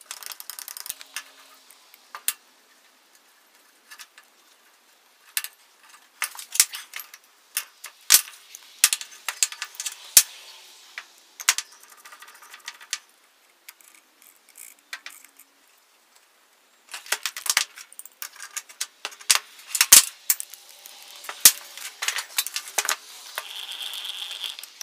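Metallic clicks, taps and rattles from an antique Millers Falls two-speed hand drill being handled, its gears turned and its parts oiled. Near the end there is a steady whir as it is cranked to drill into a block of wood.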